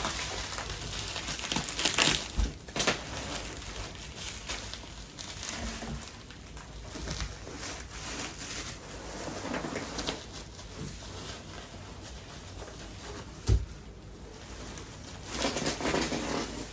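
Plastic bubble-wrap packing being pulled and unwrapped, crinkling and rustling continuously, with a couple of dull knocks about two and a half seconds in and near the end.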